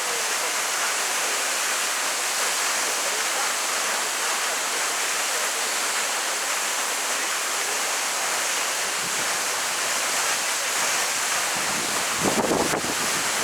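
Waterfall: a steady rush of falling water, with a short gust of wind on the microphone near the end.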